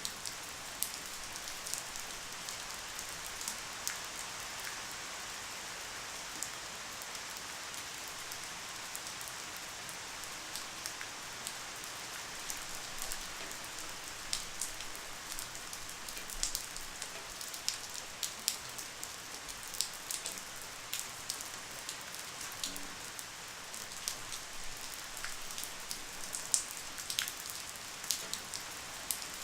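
Light rain falling steadily: a soft even hiss with scattered sharp drip ticks of single drops.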